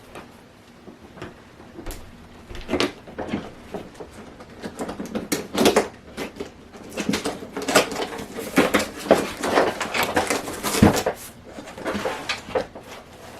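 Irregular rustling, clicking and knocking of packaging being handled as items are unpacked from a box, busiest through the middle.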